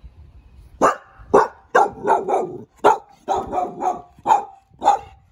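A dog barking, about ten barks in a quick, uneven run that starts about a second in.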